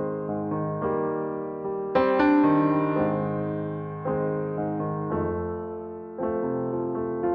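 Slow, gentle solo piano music: chords struck about once a second, each one left to fade away.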